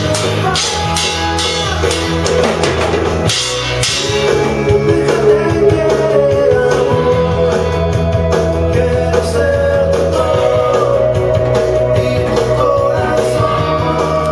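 Rock song with guitar and singing, with drum and cymbal hits from a child's junior drum kit played along with it.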